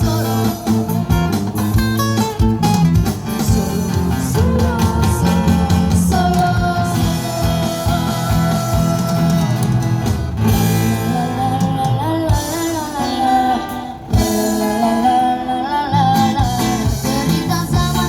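A song sung with guitar and bass accompaniment: a voice carrying the melody over strummed chords and a steady bass line.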